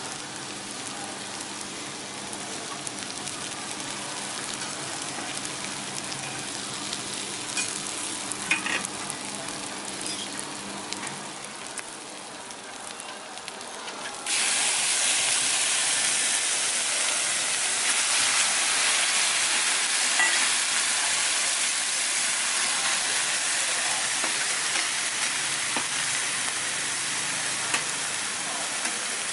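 Cabbage and carrot sizzling softly on a hot teppanyaki steel griddle. About halfway through, thin raw meat cutlets are laid on the plate and a much louder, steady sizzle takes over.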